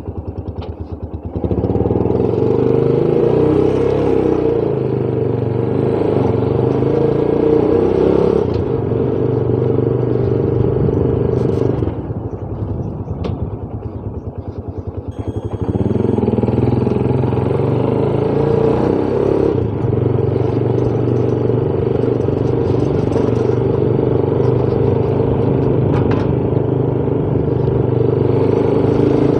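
Motorcycle engine heard from the saddle: idling with an even pulsing beat, then pulling away about a second and a half in and running steadily under throttle. Around twelve seconds in it eases off, and about three seconds later it picks up again.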